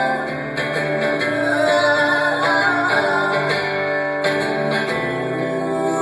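Acoustic guitar played live, chords strummed and ringing, in a passage of a duo's folk song with no clear singing.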